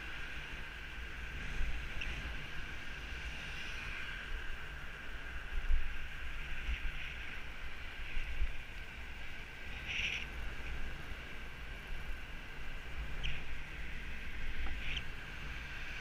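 Wind buffeting the microphone while riding along a roadside path, over a steady high hum, with a brief squeak about ten seconds in.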